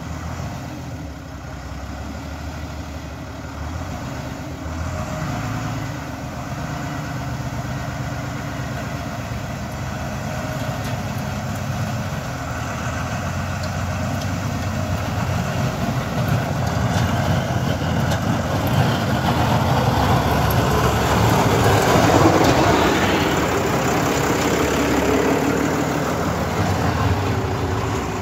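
Diesel engine of a farm tractor running steadily as it pushes a front-mounted snowplow blade along the road, growing louder as it comes close. The hiss and scrape of snow being shoved by the blade builds alongside the engine and is loudest about three-quarters of the way in.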